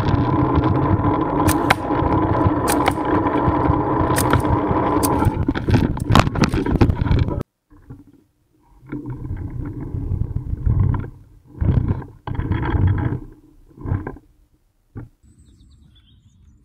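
Zipline pulley running down the cable with a clay-target carrier, a steady grinding whine crossed by a few sharp cracks, cut off suddenly about halfway through. Several short bursts of rumbling noise follow.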